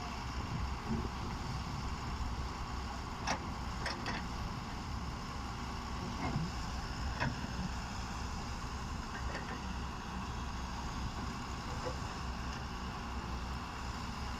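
Heavy diesel construction machinery, excavator and dump truck work, running steadily, with a handful of short sharp knocks in the first half.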